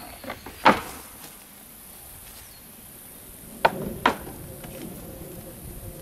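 Wooden knocks as a stingless-bee hive box and its lid are handled and set down: one near the start, a louder one just under a second in, and two more about four seconds in, half a second apart.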